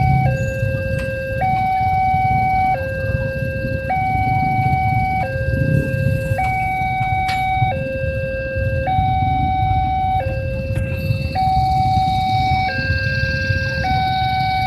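Railway level-crossing warning alarm sounding a two-tone signal, alternating between a lower and a higher note about every second and a quarter, while a passenger train's carriages rumble past on the rails.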